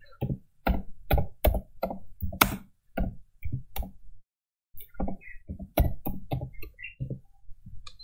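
Computer keyboard being typed on: single keystrokes at a slow, uneven pace of about two or three a second, with a short pause about four seconds in.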